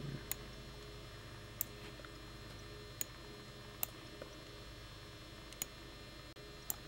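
Computer mouse clicking six times at irregular intervals, faint over a low steady hum.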